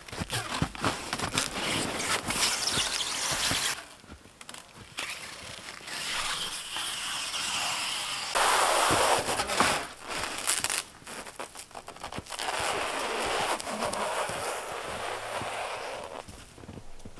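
Plastic stretch film being pulled off its roll and wrapped around a wooden shelter frame, a crackling, squealing plastic noise in several long pulls with short breaks between them, the loudest about halfway through.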